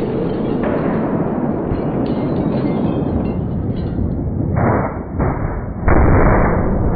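Side-impact crash test of a Volvo V90 Cross Country: a steady rumble, then two short bangs about four and a half and five seconds in, and the loudest crash about six seconds in as the moving barrier strikes the car's side, fading slowly after.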